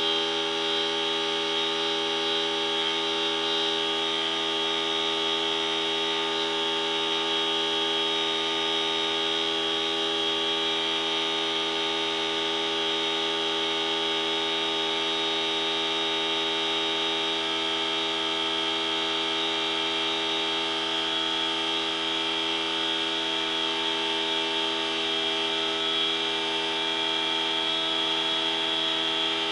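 A machine's steady hum with a high whine, unchanging throughout.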